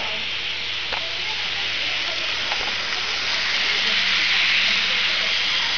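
N-gauge model of an EF65-1000 electric locomotive with container wagons running on sectional track: a steady hissing whir of the tiny motor and wheels on the rails, with a couple of faint clicks, swelling about four seconds in as the locomotive comes close.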